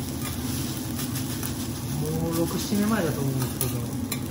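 Metal spatulas scraping and clicking on a steel teppanyaki griddle as fried rice is spread and turned, over a steady low hum. A person's voice cuts in briefly about halfway through.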